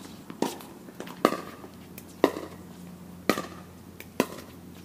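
Tennis ball hits on a court, racket strikes and bounces: five sharp pops about a second apart, the one just past two seconds the loudest.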